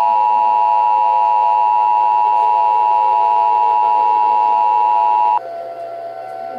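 Emergency Alert System two-tone attention signal: a loud, steady dual tone that cuts off suddenly about five seconds in, leaving a fainter steady tone.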